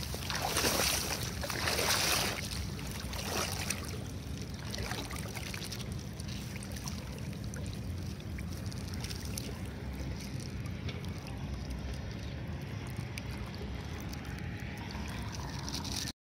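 Wind buffeting the microphone, a steady low rumble, with grass rustling and brushing past in the first couple of seconds.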